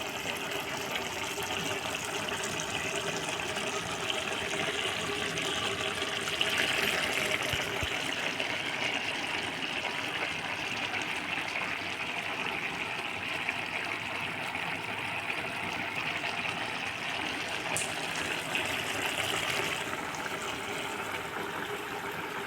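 Pan of Maggi noodles boiling: a steady bubbling hiss.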